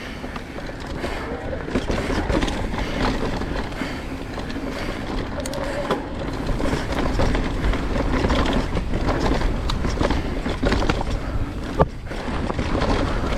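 2020 Specialized Turbo Levo electric mountain bike being ridden over rough dirt trail, its frame, chain and tyres rattling and knocking, under a steady rumble of wind on the microphone. A sharper knock comes about two seconds in and another near twelve seconds.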